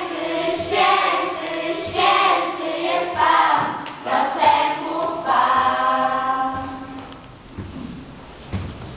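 A group of children singing together, held sung phrases of a song that end about seven seconds in.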